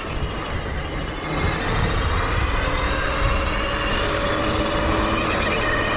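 Bafang BBS-HD mid-drive motor whining under power, its pitch rising slowly as the bike picks up speed from about a second and a half in, over a low rumble of wind and tyres.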